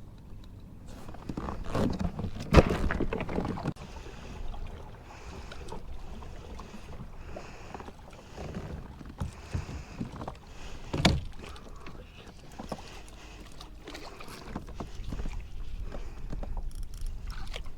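Handling noises on a kayak: a sharp knock about two and a half seconds in and another around eleven seconds, with irregular softer knocks and rustles in between and a low rumble near the end.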